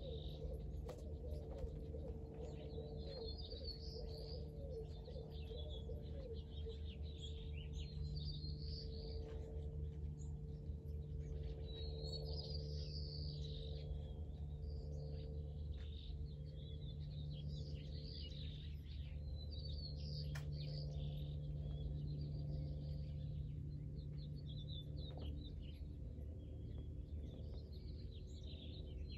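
Small birds chirping in short high bursts every few seconds, over a steady low hum.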